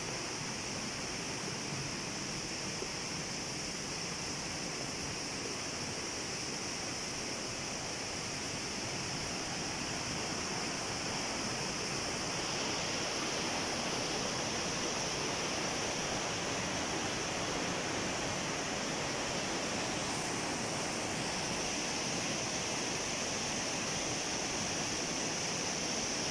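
Rushing water of a mountain stream and waterfall cascading over rocks, a steady, unbroken sound that grows a little louder about halfway through.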